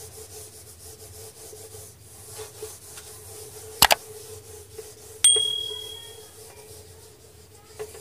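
A whiteboard eraser rubbing back and forth across a whiteboard, wiping off marker writing. Near the middle come two sharp knocks, the second followed by a short high ringing ping that fades within about a second.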